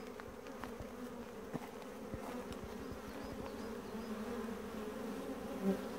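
Honeybees buzzing at a busy hive entrance: a steady, dense hum of foragers coming and going during a strong nectar flow, with a brief louder buzz near the end.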